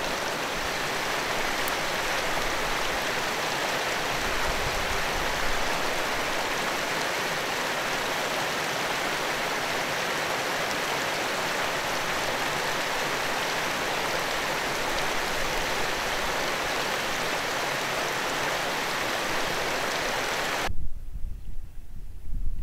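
Small mountain stream cascading over rocks: a steady rush of running water. About 21 seconds in it cuts off abruptly to gusty wind rumbling on the microphone.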